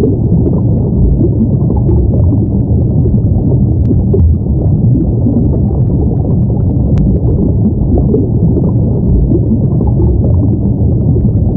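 Loud, steady underwater ambience: a dense low rumbling wash with small faint ticks scattered through it.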